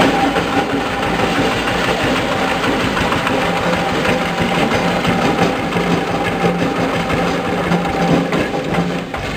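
Single-cylinder stationary diesel engine driving a coconut-husk hammer mill, a loud steady mechanical din of engine and whirring mill with a thin steady whine, as husk is shredded into cocopeat powder.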